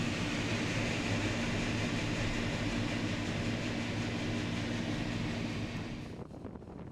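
Large diesel farm machine running close by: a steady engine drone with a low hum, fading away near the end as it moves off.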